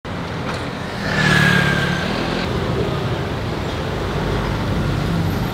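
City street traffic: vehicle engines running steadily, with a louder vehicle passing close by about a second in.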